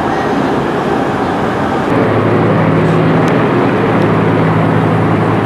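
A steady rushing noise, then from about two seconds in the steady drone of a piston-engined propeller fighter aircraft flying overhead.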